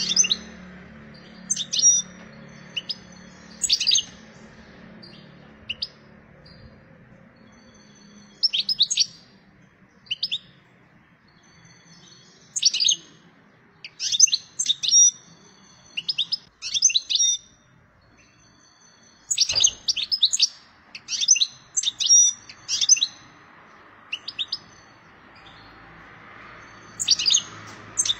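Wild-caught European goldfinch singing in short bursts of high twittering and chirping notes, with gaps of a second or more between phrases and a busier run about halfway through. It is a bird in breeding condition, singing to find a mate.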